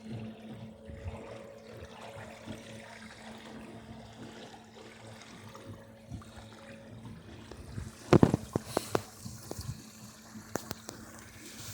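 Water trickling and lapping against a small sailboat's hull while under way. A quick cluster of knocks comes about eight seconds in.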